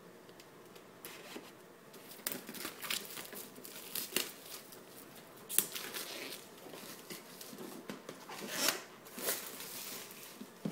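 Plastic wrapping on a cardboard box being slit with a knife and pulled, crinkling and tearing in irregular crackles and scrapes, with the box handled and turned over.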